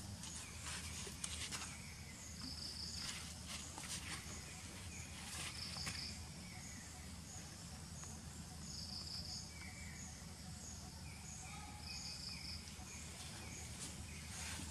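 Insects chirping in a repeating pattern, a short high buzz about every three seconds over quicker faint ticks, over a steady low background hum. A few brief crackles of dry leaf litter near the start, where a macaque walks.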